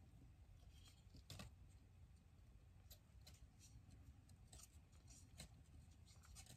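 Near silence with faint, scattered light clicks and rustles from flat wooden craft spoons being handled and turned over in the hands.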